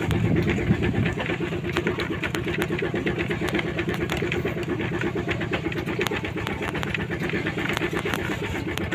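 A small engine running steadily with an even, fast pulse, overlaid with frequent light rattling clicks.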